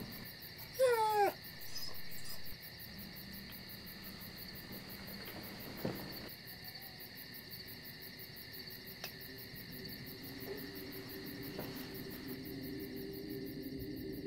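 A pet animal gives a short, wavering whine about a second in, over a steady chirring of night crickets. A light click about nine seconds in is the bedside lamp being switched off, and a low drone swells near the end.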